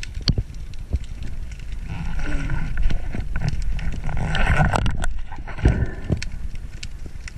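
Muffled underwater sound picked up through a camera housing while a freediver swims with a speargun: a low rumble with irregular clicks and knocks.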